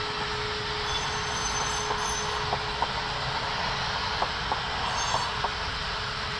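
HO scale model train rolling along layout track: a steady running noise with irregular clicks of wheels over rail joints and a few brief, high squeals.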